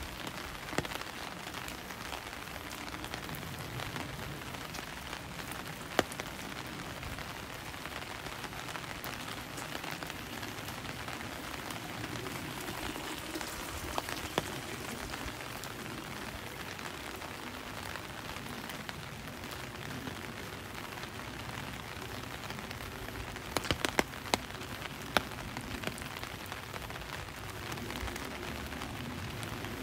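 Steady rain falling, with sharp drip taps now and then and a quick run of several taps late on.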